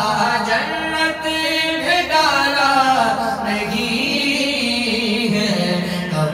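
A man chanting devotional verse unaccompanied into a microphone, a single voice in long held notes that bend up and down in pitch.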